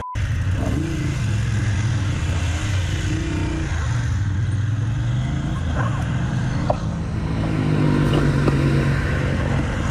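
Motorcycle and car engines running in street traffic, a steady hum. A passing engine grows louder about eight seconds in. It opens with a brief cut-out and a short electronic beep.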